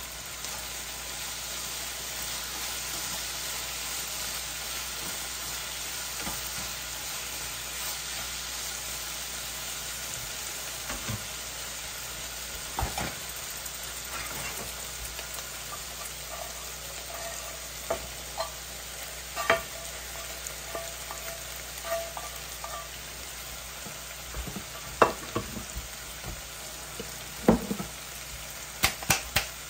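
Food sizzling steadily in a hot pan, with scattered sharp clinks and scrapes of a cooking utensil that come more often in the second half.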